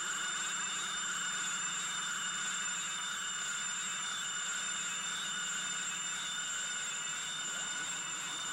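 Electronic soundtrack of synthesized tones: several steady high tones held over a hissy bed, laced with a dense flurry of quick sliding pitches.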